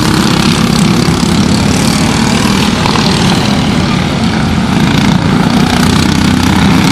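Several racing go-kart engines, Briggs & Stratton Animal four-strokes, running at speed around the track in a steady, dense drone.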